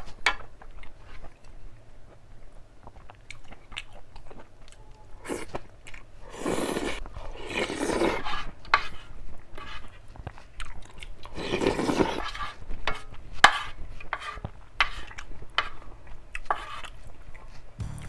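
Close-miked chewing and crunching of food, with several louder bites among many small mouth clicks.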